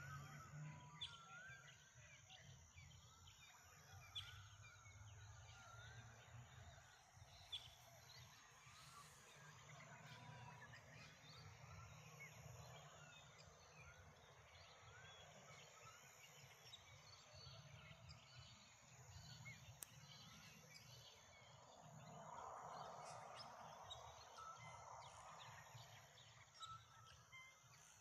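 Faint morning birdsong: many small birds chirping and calling in overlapping short phrases, over a low steady rumble of background wind and surf.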